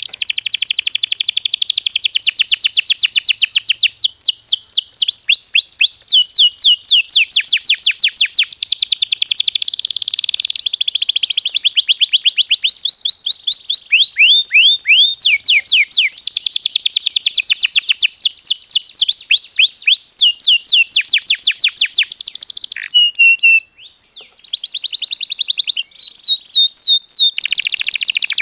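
Domestic canary singing a long, continuous song of very fast, high trills and chirps that change phrase every few seconds, with one brief pause about 24 seconds in.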